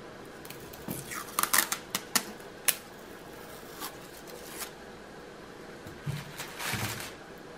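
Clear adhesive tape being peeled off a rolled paper-wrapped canvas: a run of sharp crackles and ticks in the first few seconds, a few scattered ticks, then a short paper rustle near the end.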